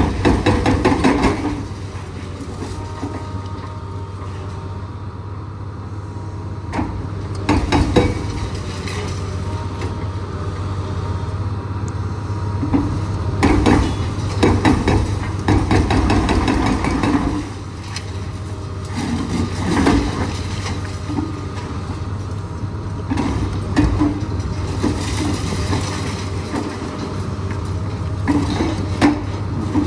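Liebherr 954 excavator's diesel engine running steadily under load, with bursts of rapid hammering and crunching from its hydraulic breaker breaking up a building every few seconds.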